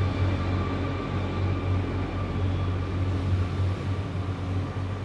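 Steady low background hum with a few faint fixed whining tones above it.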